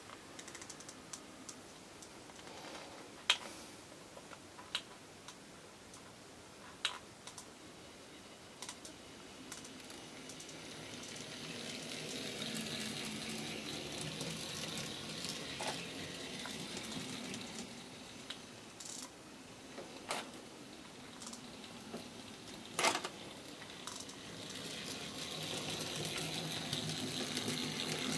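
N scale model diesel locomotive running on the layout's track: a faint whir and rumble of motor and wheels that swells around the middle and again near the end as the locomotive comes closer, with scattered sharp clicks from the track.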